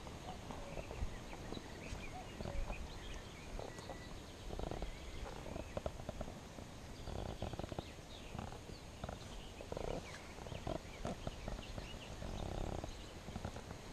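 Outdoor ambience of small birds chirping now and then, over close rustling and clicking handling noise from a body-worn action camera and light steps on dry rock and gravel.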